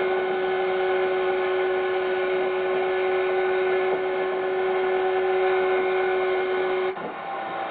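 Mariner outboard motor running flat out at a steady high pitch as the speedboat planes. The sound drops away abruptly near the end.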